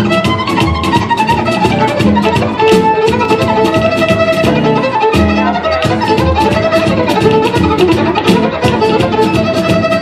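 Violin playing a lively melody, bowed, over a steady percussive beat.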